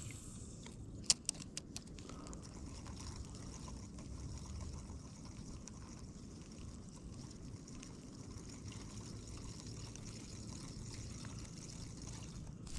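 Steady low rumble of wind on the microphone with faint water sounds, broken by a few sharp clicks about a second in.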